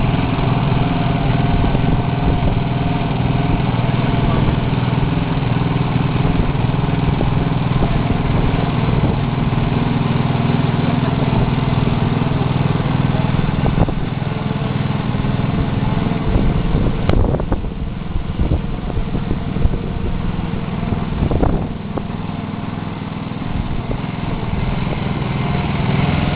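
Small lawnmower engine driving a home-built Aston Martin, running steadily. It drops somewhat in level about two-thirds of the way through, then picks up again near the end.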